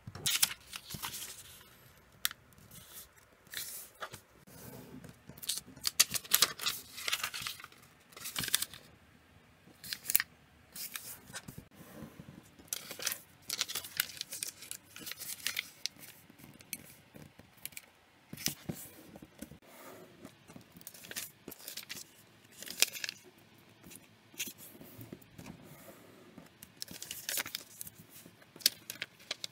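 A square sheet of origami paper being folded by hand, turned over and pressed flat on a cutting mat: irregular crisp rustles, swishes and crackles as the creases are made and smoothed.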